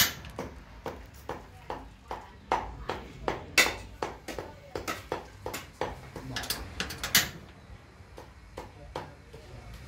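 Metal ladle clinking and scraping against a stainless steel pot while stirring spice paste: a quick run of sharp taps, about three or four a second, that thins out about seven seconds in.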